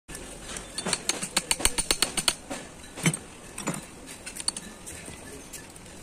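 Quick, irregular metallic clicks and clinks of Ashok Leyland truck gearbox gears and synchro parts being handled and fitted onto the mainshaft, coming thickest about a second in and then more sparsely.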